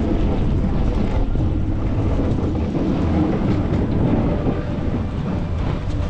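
Pickup truck pushing snow with its front-mounted plow: a steady low rumble of the truck and plow blade through the snow, with wind buffeting the microphone.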